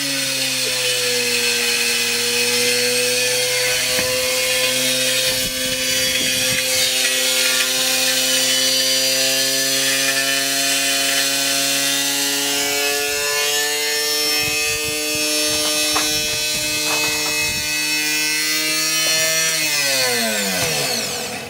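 Washing machine spinning at high speed as it is being wrecked: a steady, slowly rising whine over grinding and rubbing, with scattered knocks. Near the end the pitch drops sharply and the machine winds down.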